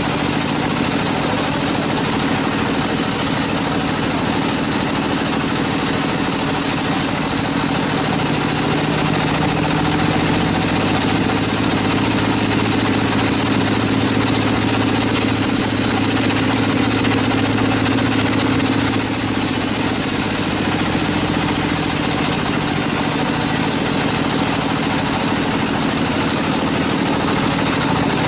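Sawmill engine running steadily at a constant speed, an even drone that neither rises nor falls.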